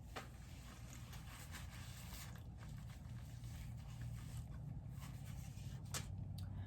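Faint chewing of bread, with a few small mouth clicks over a low steady hum.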